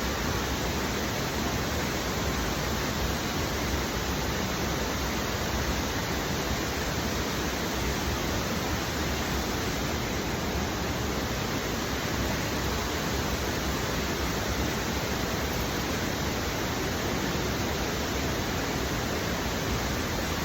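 Waterfall with water falling in a steady, unbroken rush.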